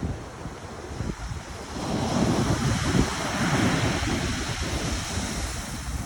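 Pacific Ocean surf: a wave breaking and washing up the shore, swelling about two seconds in and slowly easing off.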